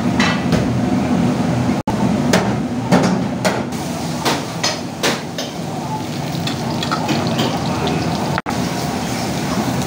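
Sharp clinks and knocks of food and utensils against a stainless-steel bowl, spread over the first five seconds, over a steady low kitchen hum.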